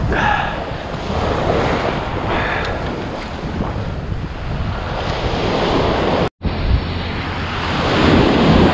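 Surf washing up the sand and over a beached striped bass, with wind buffeting the microphone. The sound cuts out briefly a little over six seconds in.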